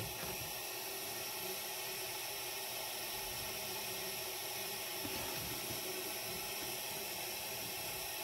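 Steady hiss of a jeweller's soldering torch flame heating a silver ring while solder is worked into a void in the shank, with a faint tick of the tweezers about five seconds in.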